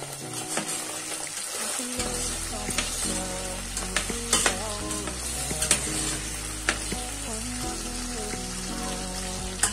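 Beef pieces sizzling as they fry in hot oil in a stainless steel pot, stirred with a metal slotted spoon that clicks against the pot several times. Background music with held notes plays underneath, its bass coming in about two seconds in.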